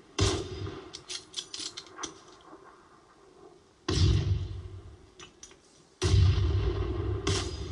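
Three sudden heavy booms, each fading over about a second, the first and last followed by a quick scatter of sharp clicks and rattles.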